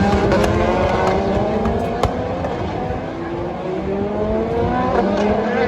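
Endurance race car engines accelerating, their pitch rising for about two seconds and then rising again through the second half, with a few sharp pops from the exhausts.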